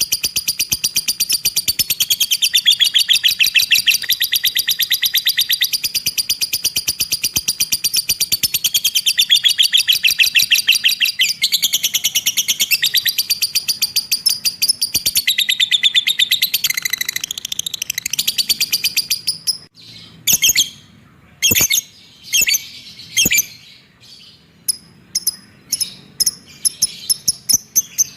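Cage bird singing a long, very fast rattling trill of high repeated notes. About two-thirds of the way through it breaks off into separate short sharp chirps with pauses between them.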